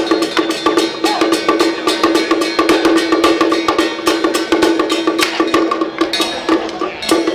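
Song Jiang Zhen percussion accompaniment: a drum beaten in fast, even strokes, with a steady ringing tone underneath.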